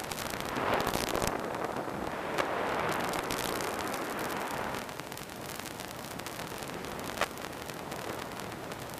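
Steady rushing hiss, swelling and fading, with a couple of sharp crackles: the audio from a long-range FPV plane's analog video downlink, with no clear motor whine in it.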